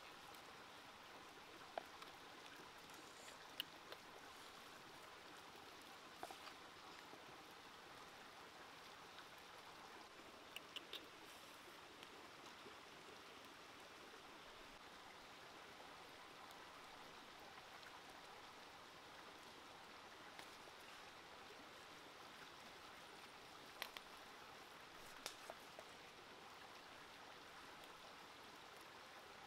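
Faint, steady running of a stream, with a few small sharp clicks now and then.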